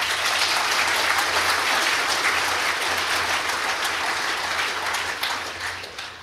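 Congregation applauding: many hands clapping, starting suddenly and dying away near the end.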